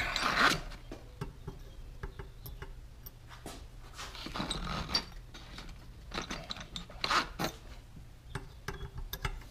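Hand tools being rummaged through to pick out a pin punch: scattered light clicks and rubbing scrapes in short, irregular spells.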